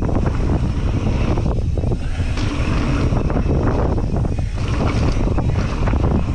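Wind rushing over the camera microphone on a moving mountain bike, with a steady low rumble from the tyres on the dirt trail and frequent small knocks and rattles from the bike over bumps.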